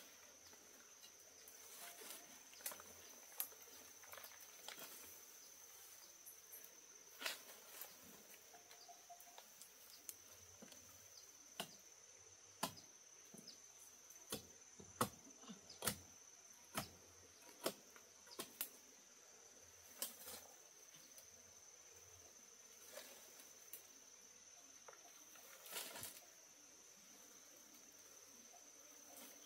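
Faint steady high-pitched insect drone, with scattered sharp clicks and snaps that come thickest in the middle.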